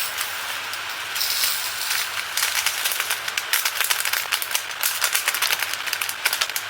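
Small resin diamond-painting drills rattling and clicking as they are poured and shaken into a plastic storage container. A hiss of sliding drills comes first, then a dense run of tiny clicks from about two seconds in.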